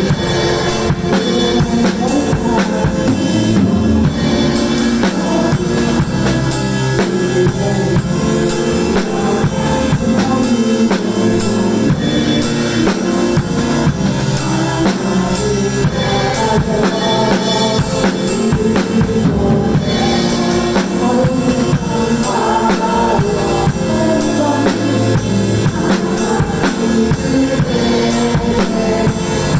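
Acoustic drum kit played along to a contemporary worship song backing track, with kick drum, snare and cymbal hits driving a steady beat over the band.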